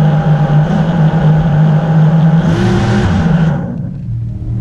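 FPV quadcopter's motors and propellers whining at a steady pitch under throttle, with a burst of louder hiss about two and a half seconds in; the sound drops away near the end.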